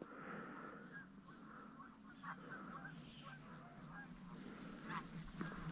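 Faint honking of a distant flock of Canada geese in flight, a scatter of short calls throughout.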